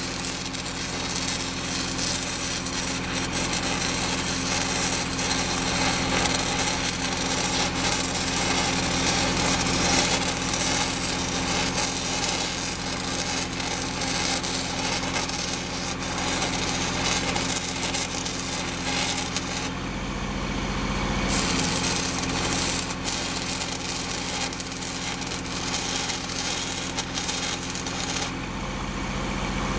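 Stick (shielded metal arc) welding on the thick steel ear of an excavator bucket: a steady crackling arc over a constant low hum. The arc breaks off briefly about two-thirds of the way through and again near the end.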